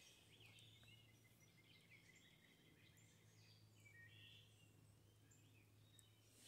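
Near silence outdoors, with faint, scattered bird chirps and short whistles and a faint steady low hum.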